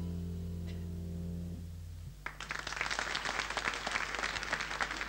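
A jazz band's last chord, with a deep bass note, rings out and fades, then audience applause breaks out a little over two seconds in and carries on.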